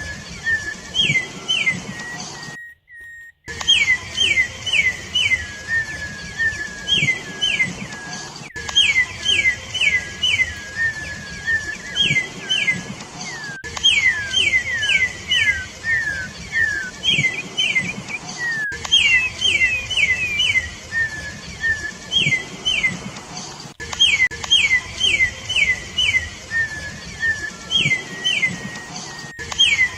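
Campo troupial (corrupião) singing: phrases of three to five quick, down-slurred whistled notes, repeated every second or two, with lower slurred notes between them. The sound drops out briefly about three seconds in.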